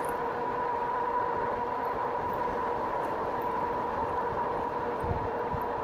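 2018 RadRover electric fat-tire bike under way: a steady whine from its hub motor and tyres over rolling road and wind noise, with a few low thumps about five seconds in.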